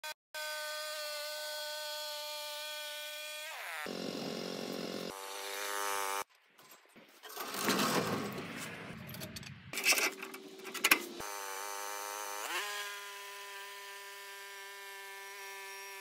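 Portable bandsaw mill's engine and band blade running at a steady pitch, which sags as the blade works through the log. Midway come rattling and a few sharp metal clanks as the mill's clamp is adjusted by hand, then the mill runs up in pitch and holds steady.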